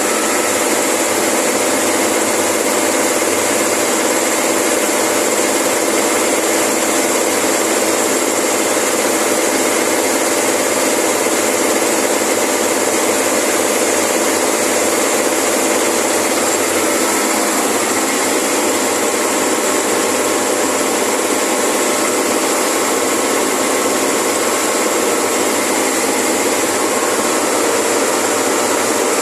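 Industrial refrigeration compressor of a tube ice machine running steadily, a constant machine drone with several steady tones, under a dense hiss that fits heavy rain.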